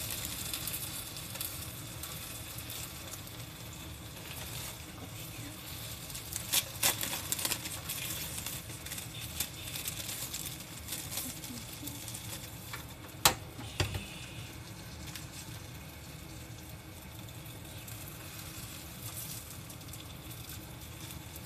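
Gyoza-wrapper rolls filled with avocado and cheese frying in oil in a frying pan, a steady sizzle. A few clicks from chopsticks on the pan around a third of the way in, and one sharp knock a little past halfway.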